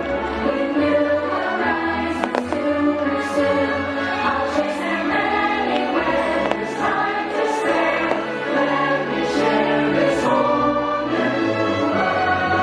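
Fireworks show soundtrack: orchestral music with a choir singing.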